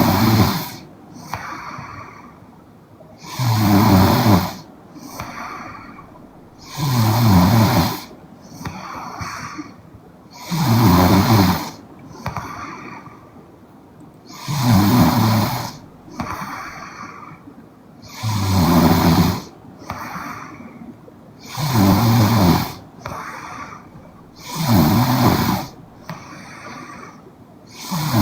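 A young woman snoring in her sleep in a steady rhythm: a loud snore about every three and a half seconds, with a softer breath between each pair.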